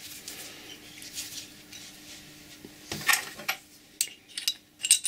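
Light metallic clinks and clicks of a steel washer and nut being handled on the threaded end of a homemade steel mandrel that holds a copper disc, a cluster about three seconds in and a few more near the end.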